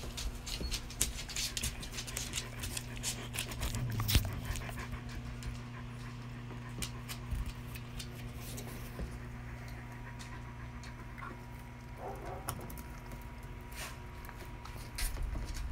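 Dogs playing on a wooden floor: a dog panting close by, with quick clicks and scuffles, densest in the first five seconds, over a steady low hum.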